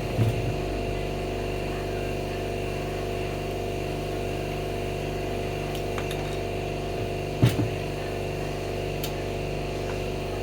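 Steady hum of a parts-washing machine running, with a few light metallic clicks and knocks as automatic transmission valve-body parts are handled; the loudest knock comes about seven and a half seconds in.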